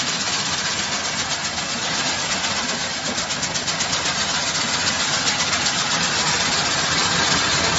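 Double-layer grain destoner running: a steady, fast mechanical rattle of its vibrating screen decks and drive as grain runs through the machine.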